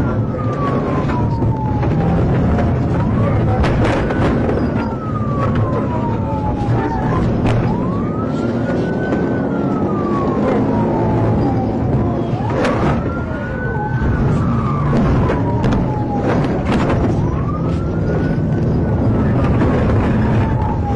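Emergency-vehicle siren wailing: each cycle rises quickly, then falls slowly, and repeats about every five seconds. A steady low rumble runs underneath, with scattered sharp clicks.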